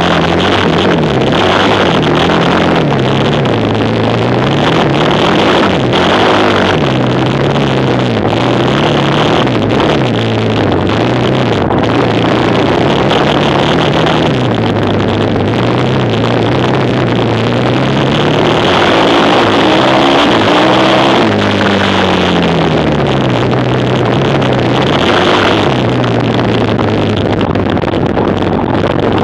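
A racing quad's engine running loud, revving up and dropping back over and over, its pitch rising and falling every few seconds.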